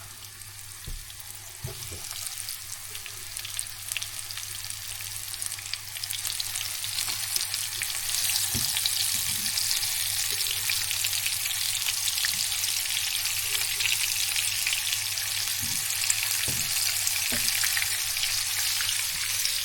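Small chicken cutlets frying in hot oil in a pan: a steady sizzle with fine crackling that grows louder about six seconds in and again about eight seconds in, with a few soft knocks.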